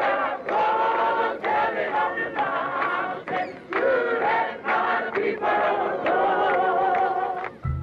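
A group singing a freedom song together, a woman's strong voice carrying the melody in long held phrases. The singing cuts off abruptly just before the end.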